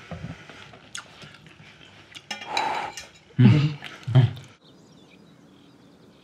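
Light clinks of cutlery and dishes at a table, then a person's low wordless vocal sounds, two loud ones close together near the middle, followed by faint quiet background.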